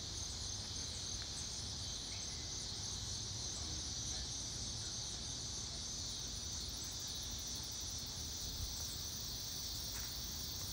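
Steady high-pitched chorus of insects buzzing in the trees, with a faint steady low rumble underneath.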